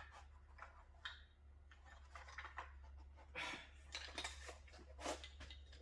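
Faint rustling and scattered light clicks and knocks of car parts being handled and shifted around in a box, over a steady low hum.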